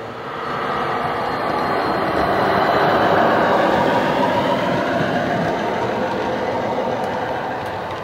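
Class 29 diesel engine sound from the DCC sound decoder's small speaker in a model Class 22 locomotive, running under power with turbo whistle. It grows louder as the loco passes close, peaking about three seconds in, then eases off as the coaches follow.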